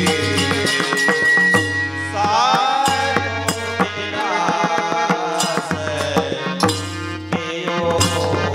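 Live Indian devotional kirtan music: tabla drumming and clashing brass hand cymbals keep a quick rhythm under a gliding melody line.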